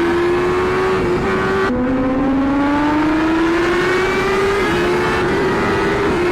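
Motorcycle engine held at high revs under acceleration, its pitch climbing slowly through a gear. It drops sharply at an upshift about a second and a half in, then climbs again, over steady wind and road noise.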